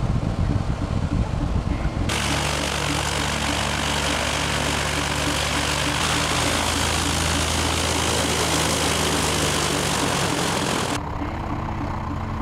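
Single-engine Cessna 172 taxiing: steady piston engine and propeller drone with a broad hiss. The sound changes abruptly about 2 s and again about 11 s in, as the view switches.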